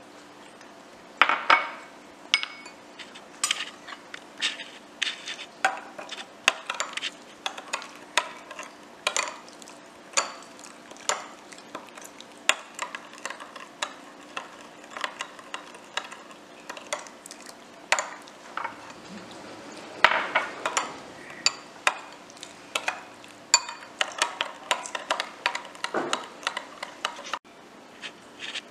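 Metal spoon stirring a thin chili-garlic fish sauce in a small glass bowl, clinking against the glass in repeated irregular taps, roughly two a second, with a louder flurry about twenty seconds in.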